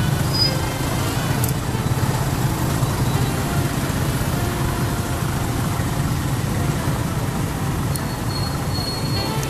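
Motorcycle-sidecar tricycles and other small vehicles running in slow, crowded traffic: a steady low engine rumble from many motors at once, with voices mixed in.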